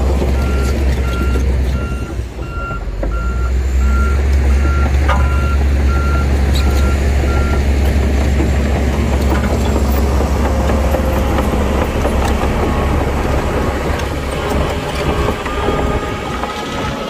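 Heavy diesel construction machine running, with its reversing alarm giving a run of evenly spaced beeps over a steady low engine drone. The beeping stops about halfway through and the engine runs on.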